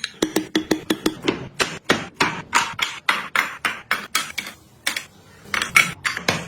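Fast series of sharp knocks on wood, about five a second at first and then a little slower, with a pause of about a second near the end before a few more knocks.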